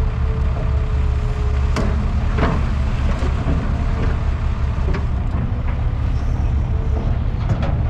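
Excavator's diesel engine running steadily under load, with a few short knocks from the machine working at about two, two and a half, five and seven and a half seconds in.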